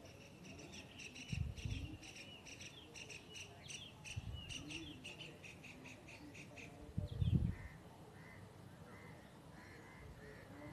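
A small animal chirping high and fast, over and over, for the first six or seven seconds, then calling now and then more softly. Two low thumps, one about a second and a half in and a louder one about seven seconds in.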